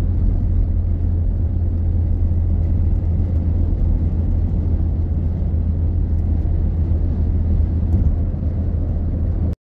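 Steady low drone of a car's engine and tyres heard from inside the cabin while cruising along a road, cutting off abruptly near the end.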